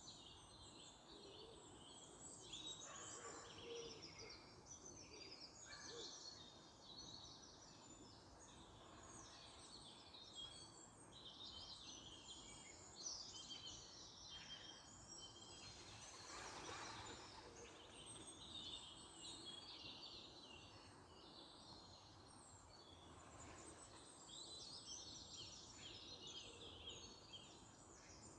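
Faint birdsong: small birds chirping and singing on and off, over a low steady background hiss.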